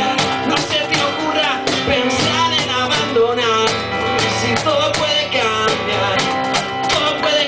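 Live acoustic band music: an acoustic guitar strummed over a steady cajón beat, with a man singing.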